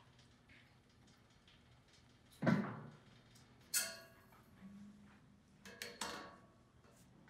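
A dull thump, then a short scraping rattle and a few lighter knocks, from large sheets being laid and slid into place on a printing press bed.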